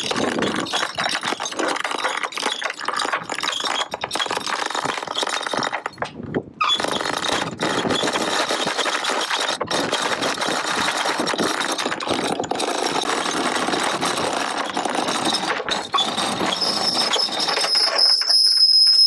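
Old galvanized anchor chain rattling and clinking continuously as it is pulled off the deck and piles up in a plastic crate, with a brief pause about six seconds in. Near the end a steady high squeal joins in.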